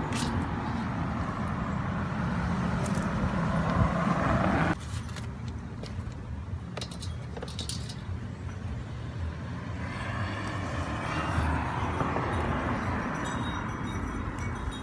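Steady low rumble that drops suddenly a few seconds in and swells again later, with light rustles and snaps of amaranth leaves being picked by hand.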